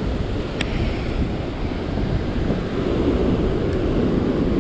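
Steady rush of water pouring over a dam spillway, with wind buffeting the microphone. A single sharp click about half a second in.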